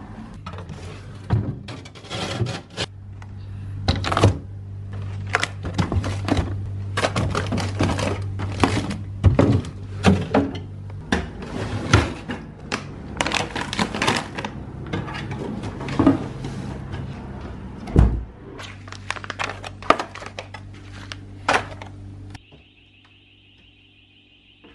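Kitchen handling sounds during food preparation: a dense, irregular run of knocks, clicks and clatters over a steady low hum. Near the end they cut off, giving way to a steady high-pitched tone for about two seconds.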